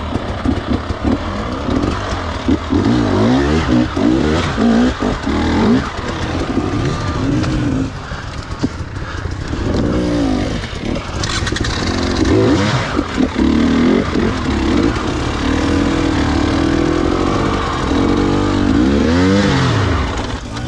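Two-stroke enduro dirt bike engine revving up and down again and again, its pitch rising and falling in short bursts.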